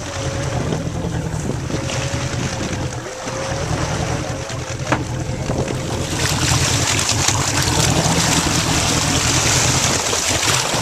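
Charter fishing boat underway: its engine runs with a steady low hum, under wind and water rushing along the hull. The rush of water grows louder about six seconds in.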